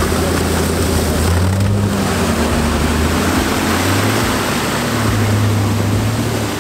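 Hummer H3 Alpha's V8 engine revving under heavy load while its tyres spin and churn through deep mud, the truck stuck to the doors and being pulled out. The revs swell about a second and a half in and again near the end.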